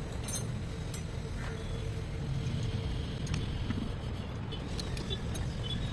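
A few light metallic clicks of hand tools working on the diesel fuel injection pump, loosening the delivery valve, over a steady low rumble.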